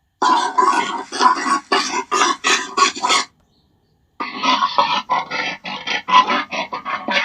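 Gorilla giving two runs of short, rhythmic grunts, about four a second in the first run and a little faster in the second, with a pause of about a second between the runs.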